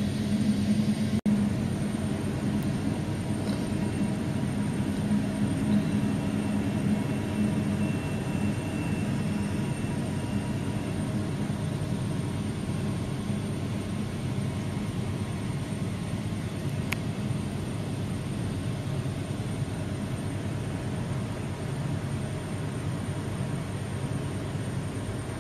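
Steady low rumble of jet airliners' engines as they taxi close by, easing slightly over the time.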